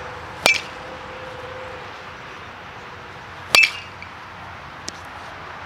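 Baseball bat hitting pitched balls in batting practice: two sharp cracks about three seconds apart, each with a brief ringing ping.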